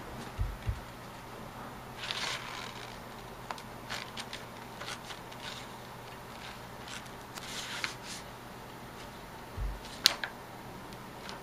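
Sheets of paper rustling and crinkling as a cat paws and noses through them, with scattered light clicks and a few dull thumps. A sharp tap about ten seconds in is the loudest sound.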